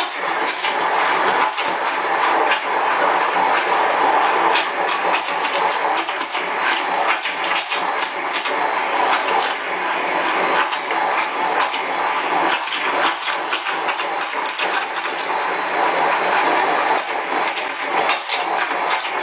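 Immersion blender running continuously in a glass measuring cup, emulsifying eggless soy-milk mayonnaise and blending in the last of the oil, with frequent sharp clicks over the steady motor.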